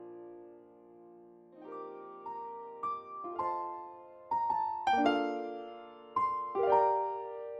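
Background music: a solo piano playing slowly, single struck notes and chords that each ring and fade, starting softly after a quiet first second or so.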